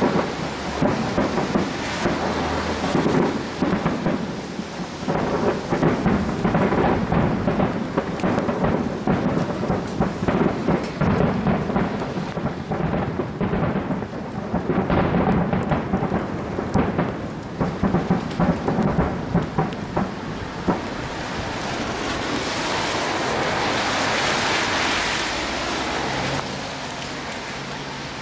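Fireworks display: a dense, rapid run of aerial shells bursting, booms and crackle overlapping. About twenty seconds in the bangs die away and a steady hiss takes over for a few seconds, then drops off near the end.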